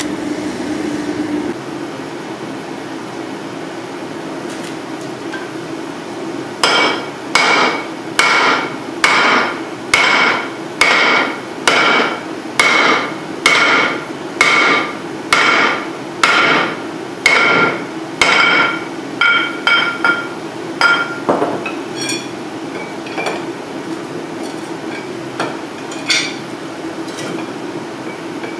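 Hand hammer beating forge-hot spring steel from a torsion bar on a makeshift anvil, a round iron plate. About six seconds in a steady run of ringing blows starts, about two a second, lasting some twelve seconds, followed by a few lighter, scattered taps. A steady hum runs underneath.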